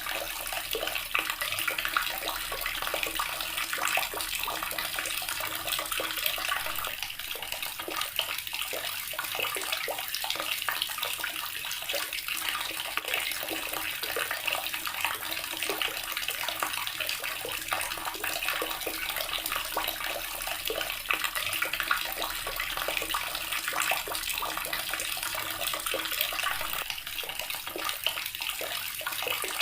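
Water running steadily from a tap and splashing into a basin, an unbroken hiss of water with small splashes.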